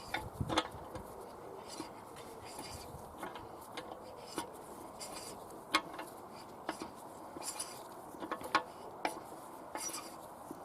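Irregular light clinks and taps of small metal parts being handled, with a few sharper knocks about half a second in, just under six seconds in and about eight and a half seconds in.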